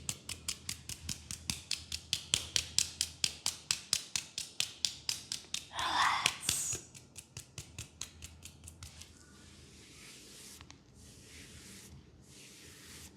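Barber's scissors snipping rapidly and evenly, about five snips a second, with a brief louder wavering sound about six seconds in. The snips then fade into a soft steady rubbing hiss.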